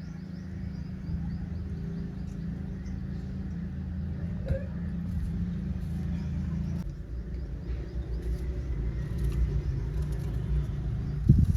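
An engine running steadily, a low rumble that cuts off abruptly at the very end.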